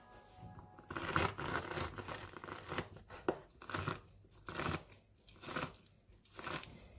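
A lemon half being pressed and twisted by hand on a plastic citrus reamer, in a series of short scraping, juicy strokes about once a second.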